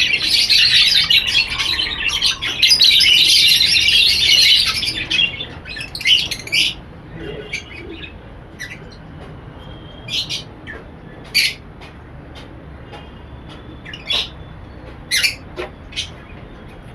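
A roomful of caged lovebirds and budgies chattering and squawking in a dense, loud mass. After about five seconds it thins to scattered single chirps and calls.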